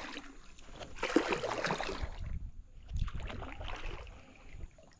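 Water splashing and sloshing around a kayak, with knocks, in two bursts of a second or two each that die down near the end.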